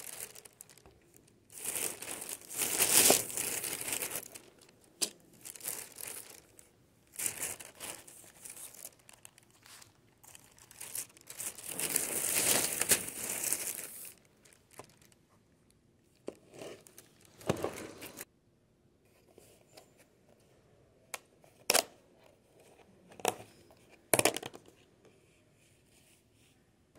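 Shopping bags rustling and crinkling as lunch is unpacked, in several bursts. In the second half come a few single sharp knocks as things are set down on the table.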